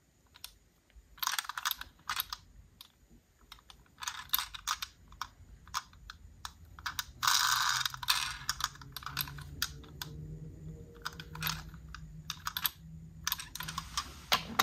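Clicks and light knocks of a small toy fire truck being handled and turned over in the fingers, with a brief louder rubbing rustle about seven seconds in.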